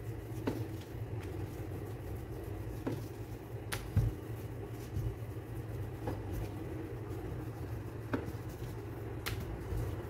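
Wooden rolling pin rolling dough out on a bamboo board: a low rumble from the pin, with several light knocks as it lifts and sets down on the board.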